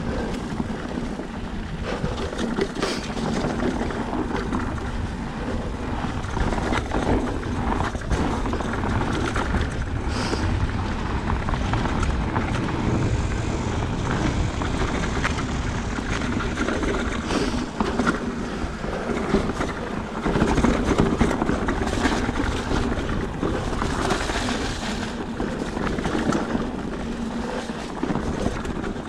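Ride noise from an electric mountain bike on a rough trail: a steady rushing noise with frequent small knocks and rattles.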